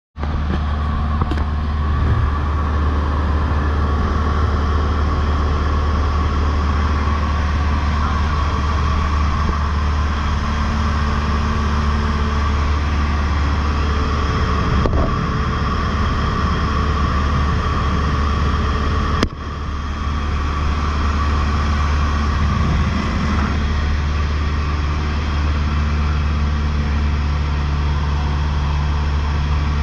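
Cessna 152's four-cylinder Lycoming piston engine and propeller running steadily in flight, with a brief dip in level about two-thirds of the way in.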